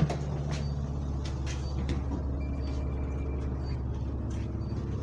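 Bus engine idling, a steady low drone heard from inside the saloon, with faint clicks and rattles over it.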